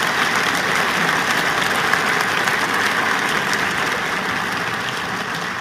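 Large audience applauding: dense, steady clapping that slowly dies down near the end.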